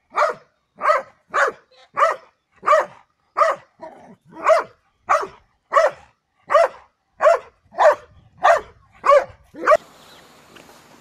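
A large dog barking over and over in a steady rhythm, about three barks every two seconds, stopping abruptly just before the end.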